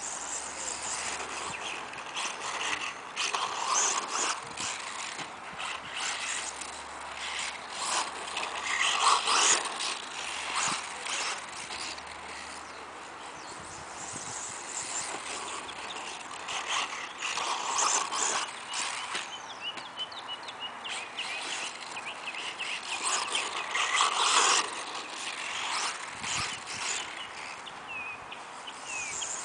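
Losi Mini 8ight electric RC buggy running laps on a dirt track: motor and gear whine mixed with tyres scrabbling on dirt. It swells several times as the car comes near, with short knocks from bumps and landings.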